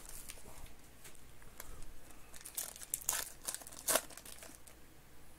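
Foil wrapper of a 2021 Panini Certified Football card pack being torn open and crinkled by hand: a run of crackling rustles, loudest about three to four seconds in.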